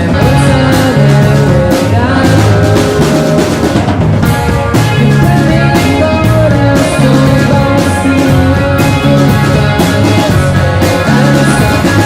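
A rock band playing live, with electric guitars, bass and drum kit, a steady beat of cymbal and drum hits under sustained guitar and bass lines.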